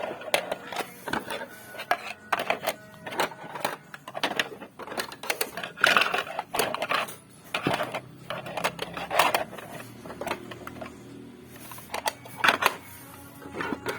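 Irregular clicks, taps and rustles of a parcel and its contents being handled, with a few louder rustling bursts.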